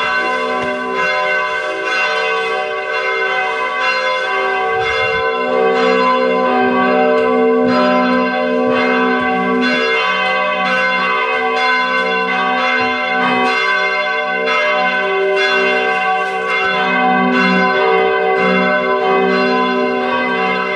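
Church bells rung by pull ropes, heard close up from inside the bell tower: strikes about one to two a second, blending into one continuous, many-toned ringing.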